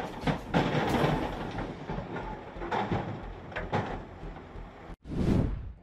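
Komatsu WA80M compact wheel loader's diesel engine running under a low steady hum, with irregular knocks and clatter as it works loading debris onto a truck. The sound breaks off suddenly about five seconds in, then swells briefly once more.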